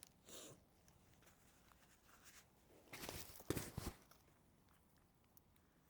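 Faint rustling and scuffing close to the microphone: a brief rustle just after the start and a louder cluster of scuffs about three seconds in, otherwise near silence.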